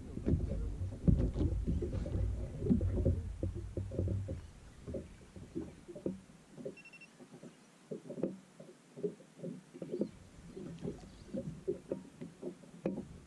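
Small waves slapping irregularly against the hull of a small fishing boat, a few soft knocks a second. A low rumble of wind on the microphone fills the first four seconds or so.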